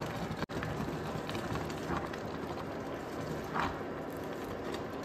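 Grated carrots and milk boiling in a pot over high heat: a steady bubbling hiss with a few short, faint pops.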